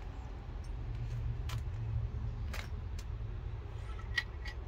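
Scattered small clicks and ticks of a plastic conduit bushing and wire leads being handled and fitted, over a steady low rumble.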